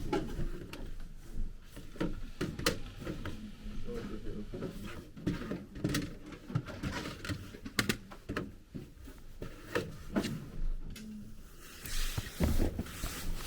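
Scattered knocks, clicks and clatter of objects being handled and set down, with faint voices in between.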